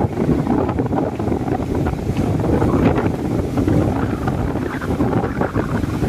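Strong wind buffeting the microphone in gusts over the steady wash of storm surf breaking on a sandy beach.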